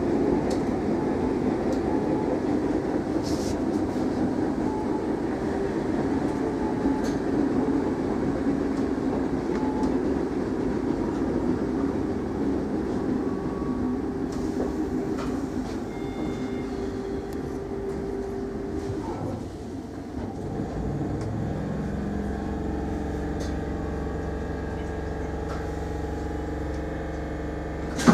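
Cabin noise inside a Class 313 electric multiple unit: the steady rumble of the train running on the rails, which dies away after about twenty seconds, leaving a steady electrical hum of onboard equipment as the train comes to a stand in the station.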